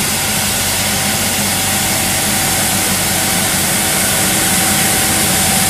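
Johnston street sweeper truck at work, its engine running steadily under a loud, even hiss that starts and stops abruptly.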